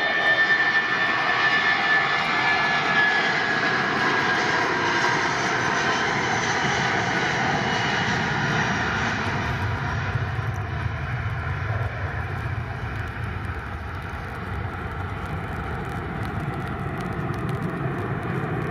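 Airbus A319 jet engines at take-off thrust during the take-off roll and lift-off. A high whine slides slightly lower and fades as the airliner goes by, and a deeper rumble takes over as it climbs away.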